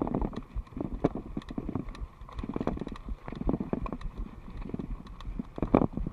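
Mountain bike rattling over a bumpy dirt singletrack: irregular knocks and clicks from the bike jolting on the rough ground, over a low rumble of tyres on dirt.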